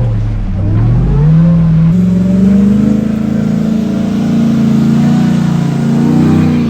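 A vehicle engine revving, its pitch dipping and then climbing, with an abrupt change about two seconds in to a higher, fairly steady engine note with small rises and falls.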